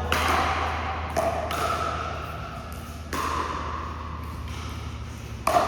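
A pickleball rally: about five sharp pops of paddles striking the hollow plastic ball and the ball bouncing, each ringing briefly.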